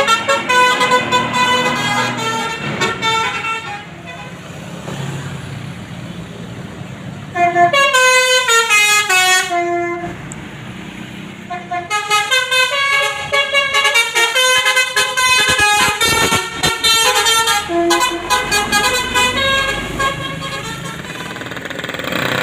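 Basuri telolet bus horn, a multi-tone musical horn, playing a tune in short stepped notes. The tune comes in three runs, one of them falling step by step, with two quieter breaks between them.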